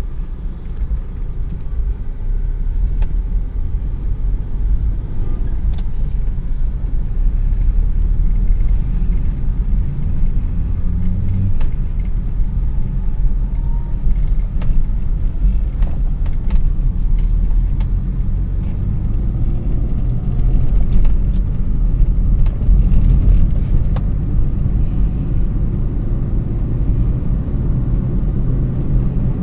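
Steady low rumble of a road vehicle in motion, with a few faint clicks.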